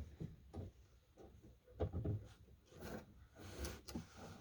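Faint, scattered clicks, knocks and rubbing as the door handle's linkage rod is worked back into place inside a truck door.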